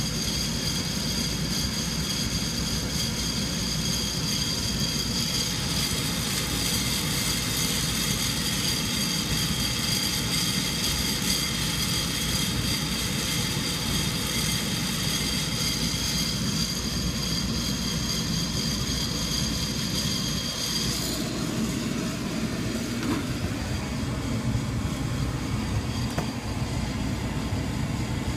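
Sonofresco fluid bed coffee roaster's hot-air blower running steadily: a constant rushing with a high whine over it that drops out about three-quarters of the way through.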